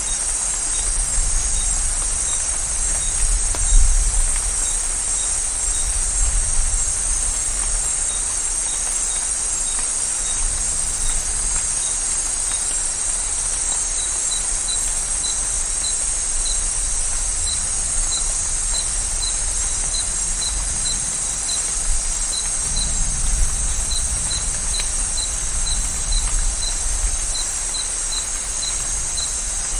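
Amazon rainforest at night: steady rain hiss under a dense insect chorus, with a small chirp repeating about twice a second through the second half. Low rumbles of distant thunder swell about four seconds in and again past the middle.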